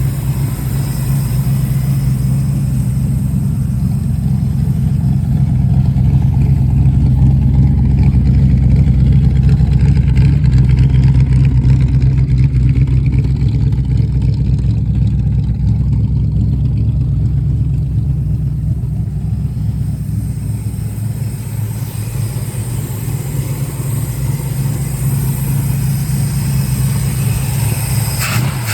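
Old-school car engine running with a deep, steady low rumble that grows louder over the first several seconds and then slowly eases off, dropping away sharply near the end.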